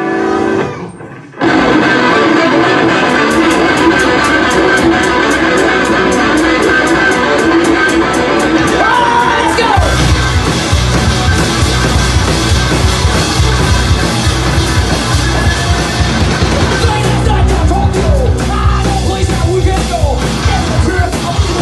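Live rock band playing loud: electric guitars, bass guitar and drum kit. The band comes in abruptly about a second and a half in, and the low end gets heavier about halfway through.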